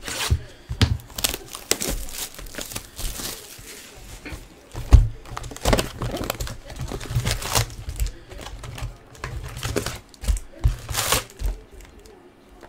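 Plastic shrink wrap torn and crumpled off a cardboard trading-card hobby box, with irregular crackling and low knocks as the box is handled and opened. Near the end the foil card packs rustle as they are lifted out.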